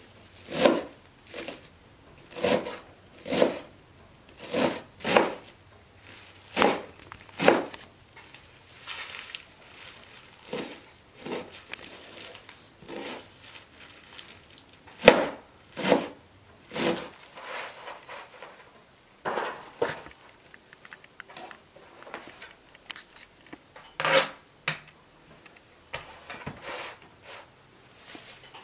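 Kitchen knife chopping leafy greens on a plastic cutting board: irregular sharp knocks of the blade against the board, about one a second at first, then more scattered.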